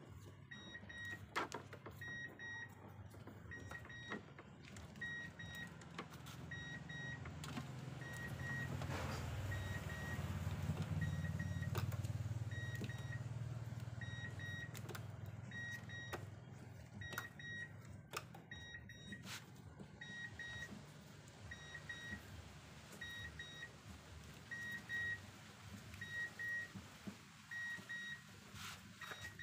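A car's electronic warning chime beeping in short pairs at one high pitch, about once a second, steadily throughout. Over it are small clicks from wires being handled, and a low rumble that swells and fades in the middle.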